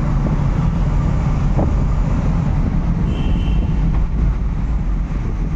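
Road noise inside a moving car: a steady low rumble of engine and tyres. A short high beep sounds about three seconds in.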